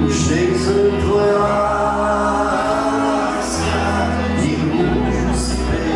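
Live band playing a song on electric guitars with singing, heard from within the audience in a hall.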